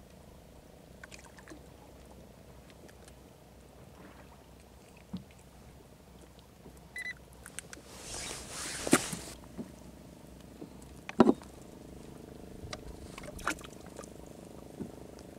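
Handling noise aboard a small fishing boat: scattered clicks and knocks over a faint steady hum. A short rushing burst of noise comes about eight seconds in, and a single sharp, loud knock follows about three seconds later.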